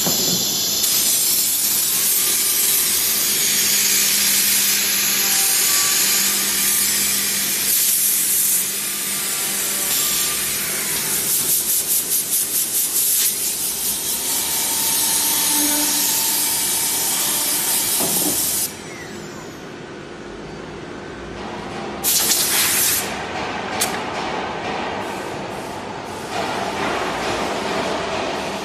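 Horizontal CNC drilling machine running a boring cycle into a cabinet panel's edge: the spindle and drill cutting wood starts abruptly with a loud, steady hiss, with a stretch of rapid pulsing partway through. The hiss drops off after about 18 seconds, followed by a few short, loud hissing bursts near the end.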